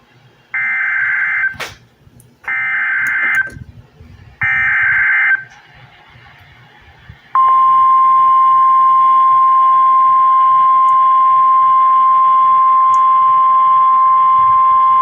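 NOAA Weather Radio emergency alert heard from a weather radio: three short bursts of screechy digital SAME header data about a second apart, then, about two seconds later, the steady single-pitch warning alarm tone. The sequence signals that an alert message, here a severe thunderstorm watch, is about to be broadcast.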